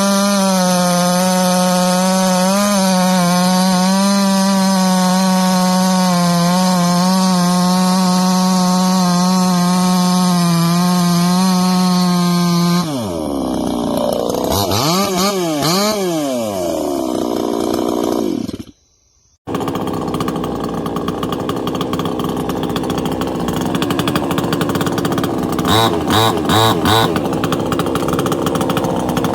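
A PROYAMA 62cc two-stroke chainsaw engine running at high, steady revs for about thirteen seconds. The revs then drop and swing up and down several times. After a brief break it runs on with a rougher note and regular pulses near the end.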